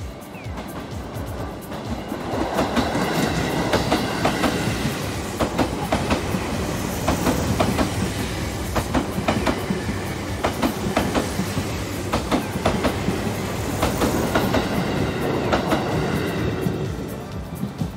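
Yellow Seibu Shinjuku Line electric commuter train passing close at track level, its wheels clicking over rail joints and points. It builds up about two seconds in and fades near the end.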